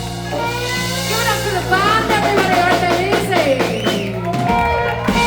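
Live rock band playing, with voices or singing over a held low bass note and drums.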